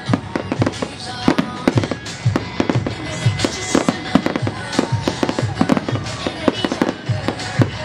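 Aerial fireworks display: shells bursting in a rapid, irregular string of booms and crackles, several a second.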